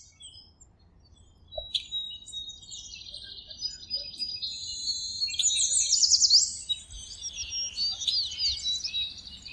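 Several small birds chirping and twittering together, many quick overlapping high notes and short trills. The chorus starts about a second and a half in, after a brief quiet, and grows busiest near the middle.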